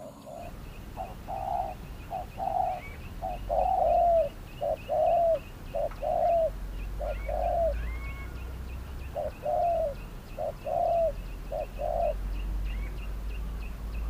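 Spotted doves cooing: a repeated series of soft coos, short notes alternating with longer arched ones, pausing briefly in the middle before resuming.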